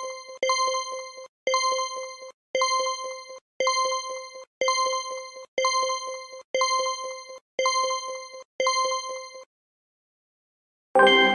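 Quiz countdown timer sound effect: a short chiming tone with quick ticks, repeating about once a second and stopping about nine and a half seconds in. Near the end a louder chime sounds and rings away, marking that the answer time is up.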